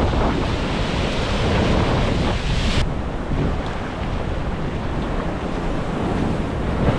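Ocean surf washing up and against a rocky shore ledge, with wind buffeting the microphone. The hiss of the water eases a little about three seconds in.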